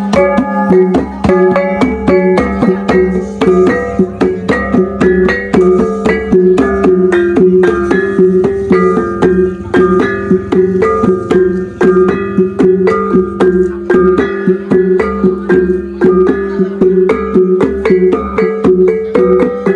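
Iban taboh gong music: rapid, even strikes, several a second, on a set of small tuned gongs, over low gong tones that ring on steadily underneath.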